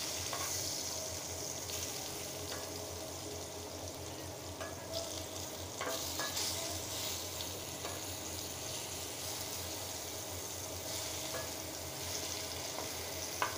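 Ash gourd slices sizzling in hot oil in a nonstick frying pan. A few light clicks come from a metal spatula as the slices are turned over.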